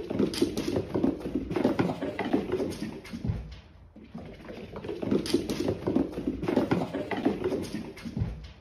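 Cat's paws pattering and thudding on a wooden floor as it runs. The rapid footfalls come in two spells, with a short lull about three seconds in.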